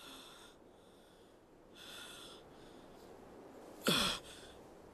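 A person breathing from a small oxygen tank: two slow, breathy draws, then a louder breath with a falling voiced sigh about four seconds in.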